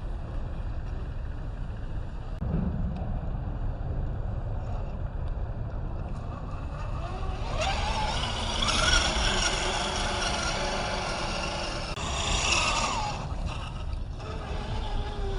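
Electric motor and drivetrain of a scale RC crawler whining under throttle over a steady low rumble. The whine rises about halfway through, holds for several seconds and falls away near the end. There is a single thump early on.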